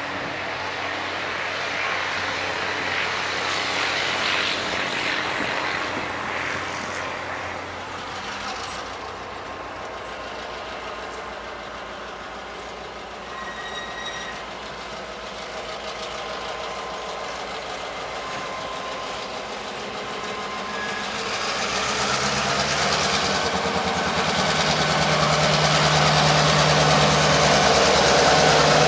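EMD F9A diesel locomotive BN-1 approaching with its passenger train, its 16-cylinder EMD 567 diesel engine and the rolling wheels growing steadily louder over the last several seconds as it draws level.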